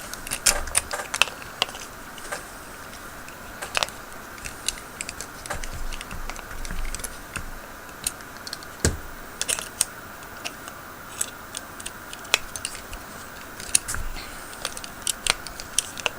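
Allen key and small metal tools clicking and tapping against a padlock body while it is taken apart, in irregular light clicks with one sharper click about nine seconds in.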